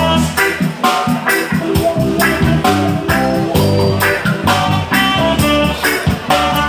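Reggae band playing an instrumental passage: guitar chords and bass over a steady drum beat.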